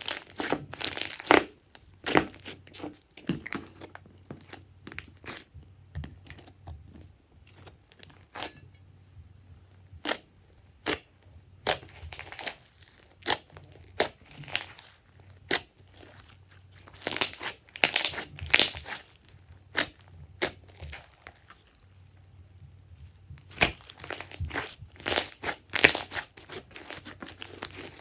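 Glossy slime mixed with foam beads being squeezed, stretched and poked by hand: irregular sticky clicks and crackles that come in clusters, with quieter gaps between.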